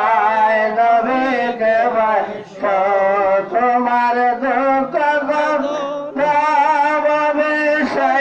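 A man singing a Bengali devotional ghazal (gojol) in praise of the Prophet, holding long, wavering melismatic notes with brief breaks about two and a half and six seconds in.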